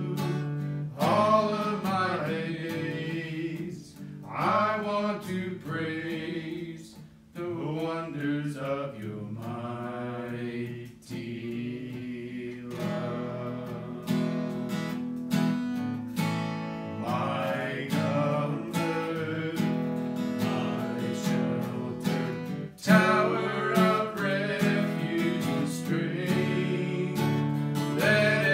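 Acoustic guitar strummed steadily, with a man singing a worship song over it.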